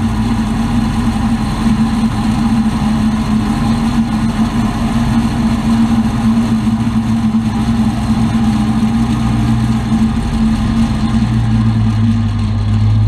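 2003 Chevrolet Avalanche running with a steady whirring drone, a deeper hum fading out about a second in and coming back near the end. The grinding, whirring noise is one the owner suspects comes from a bad transfer case bearing or the four-wheel-drive shift motor.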